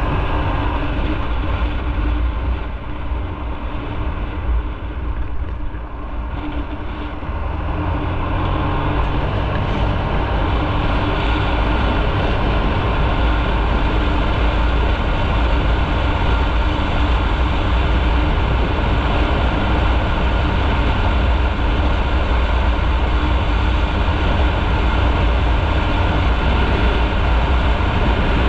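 Motorcycle running on the move, heard from the rider's position, with steady engine drone mixed with wind and road noise. It eases off for a few seconds, builds again about seven seconds in, then holds steady.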